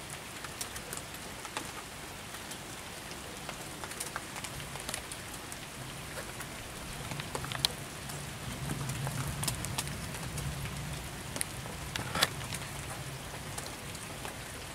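Steady rain hiss with scattered drops ticking close by. A low rumble swells from about six seconds in and fades by about thirteen seconds.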